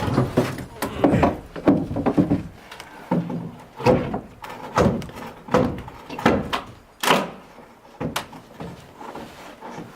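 Irregular series of wooden knocks and thumps, about a dozen, as boards or panels are handled and knocked loose during house dismantling. The loudest bangs come near the start and about two-thirds of the way through.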